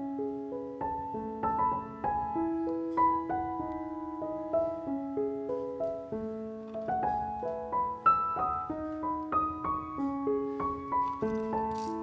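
Background piano music: a gentle melody of notes struck one after another over held lower notes.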